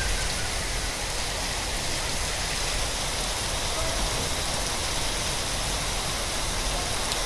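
Heavy rain pouring down onto a flooded street, a steady, even hiss of downpour on standing water.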